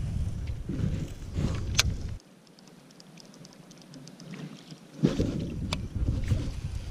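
Wind buffeting and handling rumble on the microphone aboard a fishing kayak, with a few sharp clicks. The rumble drops away suddenly after about two seconds, leaving faint quick ticking from the baitcasting reel as the lure is slowly wound in, then returns abruptly about five seconds in.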